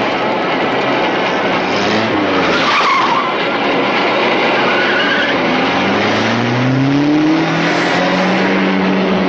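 Chase soundtrack of a ZIL-130 truck and a car driven hard, with steady engine and tyre noise. About six seconds in, an engine revs up, its pitch rising steadily for about two seconds.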